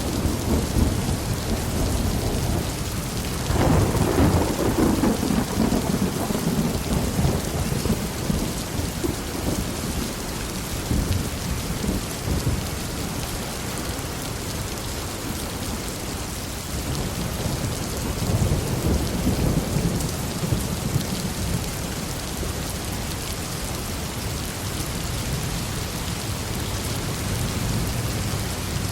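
Steady heavy rain falling, with rolling thunder rumbling underneath; a louder thunder roll breaks in about three and a half seconds in and another swells up around two-thirds of the way through.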